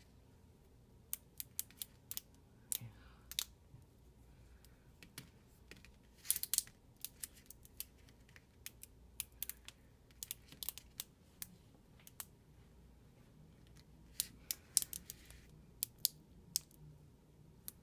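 Plastic glow sticks being bent one after another to crack the glass vials inside them, giving a scatter of sharp little clicks and crackles, bunched in a few clusters.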